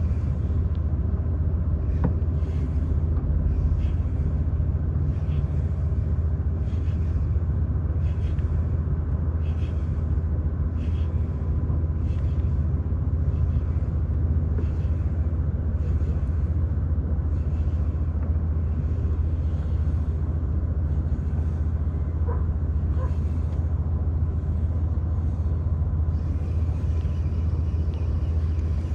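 A steady low rumble throughout, with a faint whirring that repeats about once a second: a spinning reel being cranked to retrieve the lure.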